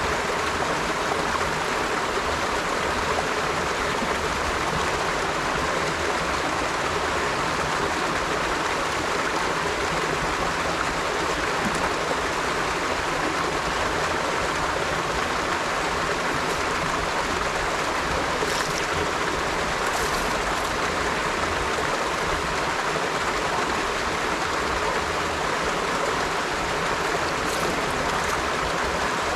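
River water flowing steadily over rocks, an even rushing and babbling that stays at a constant level.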